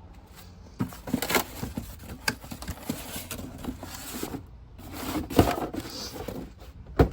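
Packaging being gathered up and handled: rustling and crinkling with many small clicks and knocks, and two louder thumps, one about five and a half seconds in and one near the end.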